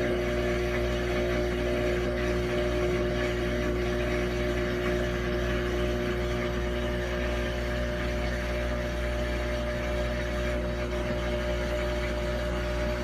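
Samsung washing machine running with a loud, steady droning hum that carries a couple of steady tones, the strongest of which softens about four seconds in.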